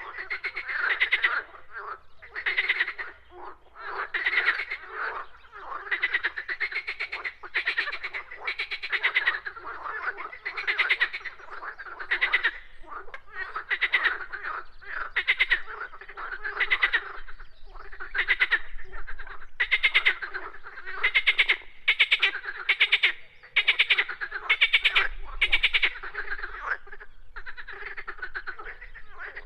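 Frogs croaking in chorus: pulsed, rattling calls from several frogs overlapping, one following another about once a second.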